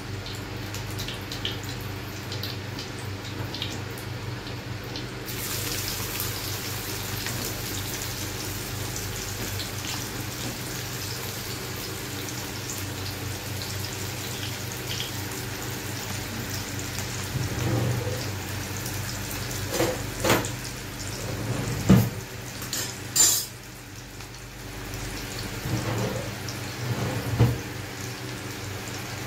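Chopped onion sizzling in hot oil in an iron kadai, a steady hiss that turns louder and brighter about five seconds in. A steady low hum runs underneath, and a few knocks and clanks of utensil on pan come in the second half.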